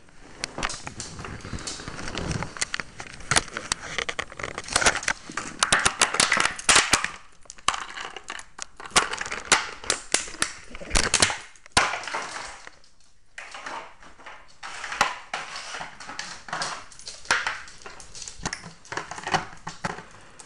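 A small dog chewing and batting an empty plastic water bottle: a busy run of irregular crackling and crunching of the plastic, with knocks as it skids across the floor, and a short lull about two-thirds of the way through.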